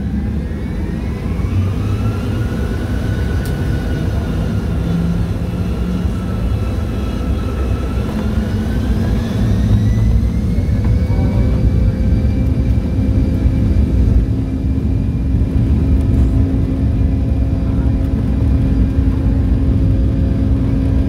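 Boeing 757's jet engines spooling up for takeoff, heard from the passenger cabin: a whine rises in pitch in two steps over the first ten seconds or so and then holds steady. Underneath is a deep rumble from the takeoff roll that slowly grows louder.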